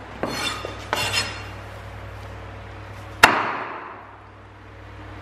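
Kitchen knife or cleaver chopping on a wooden cutting board: two light clattering taps in the first second or so, then one hard chop about three seconds in.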